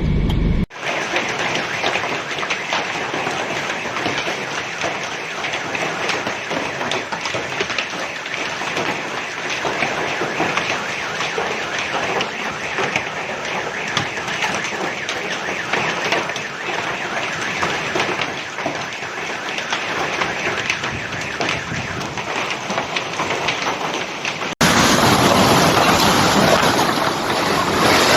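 Heavy rain pattering steadily in a dense, crackling hiss. About 25 seconds in it cuts abruptly to a louder, brighter downpour.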